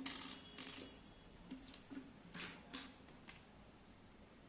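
Faint scattered clicks and taps of small plastic LEGO bricks being picked up and handled on a tabletop, about half a dozen over a few seconds.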